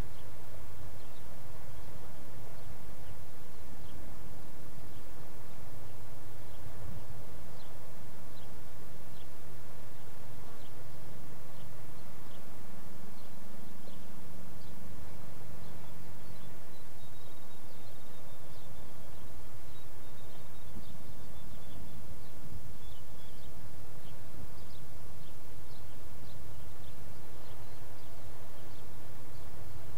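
Steady outdoor ambience: a low hum under constant background noise, with scattered short high chirps and ticks, and a thin, wavering high call around the middle.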